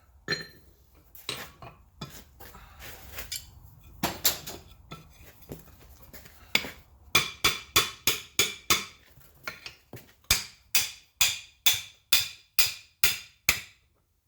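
Hand hammer striking a wrought iron hinge strap to straighten out its curl. Each blow rings. A few scattered blows come first, then a steady run of about two to three blows a second through the second half.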